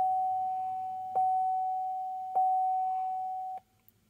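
The 2012 Chevy Equinox's dashboard warning chime, sounding as the ignition is switched on: a single steady tone, struck three times about a second apart and fading after each strike, then cutting off suddenly near the end.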